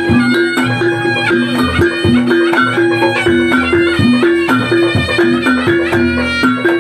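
East Javanese reog accompaniment music: a sustained reedy melody over an even beat of two low pitched notes alternating about twice a second.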